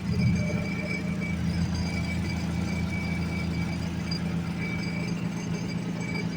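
Portable twin-tub washing machine's motor running with a steady hum, with a faint high whine that comes and goes.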